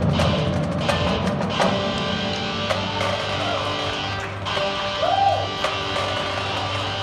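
High school marching band playing its show music, with several sharp percussion hits in the first two seconds, then held notes, one of which bends up and back down about five seconds in.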